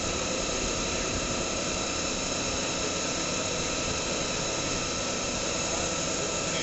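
A CNC lathe running steadily: several high, steady whining tones over a dense, even mechanical hum, with no breaks or changes.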